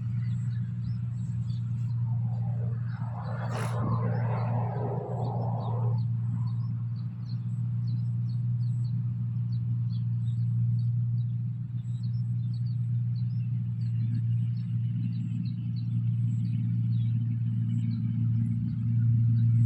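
New Holland 1545 rice combine harvester's engine running steadily under load while harvesting, a constant deep drone, with a brief rush of hissing noise about three seconds in.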